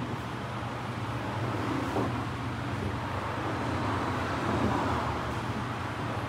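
Steady road traffic noise with a low, even hum.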